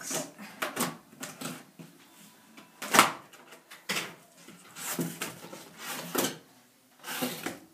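Large cardboard shipping box being opened by hand: irregular scrapes and rustles as its flaps are cut and pulled back, with one sharp knock about three seconds in.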